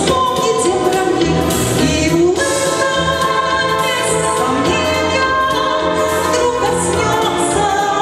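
A woman singing into a handheld microphone over amplified instrumental accompaniment, holding long notes.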